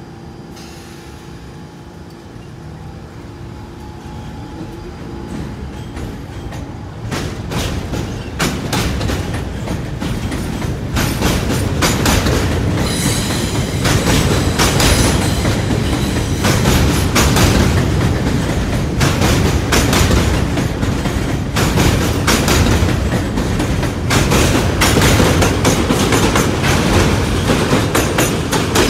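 R46 subway train running past on the tracks, its wheels clicking rapidly over the rail joints over a heavy rumble. It grows steadily louder over the first dozen seconds and then stays loud.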